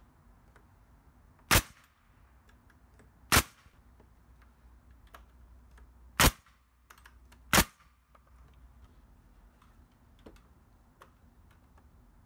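Pneumatic nail gun firing four separate shots, driving nails into framing lumber, with faint ticks and handling noise between the shots.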